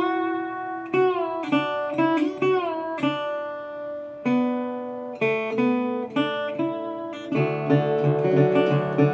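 Acoustic guitar playing a song's instrumental opening: single picked notes, several bent or slid in pitch, then about seven seconds in a steady fingerpicked pattern with bass notes underneath.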